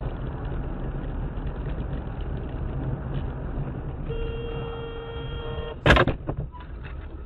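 Dash-cam recording of a car's engine and road noise inside the cabin; about four seconds in a car horn sounds, one steady blast for under two seconds, and right after it comes a sudden loud thud.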